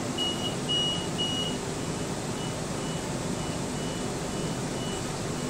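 Train door-closing warning beeps on a Sydney Millennium train: three loud high beeps, then fainter beeps at the same pitch repeating about twice a second, over the carriage's steady hum.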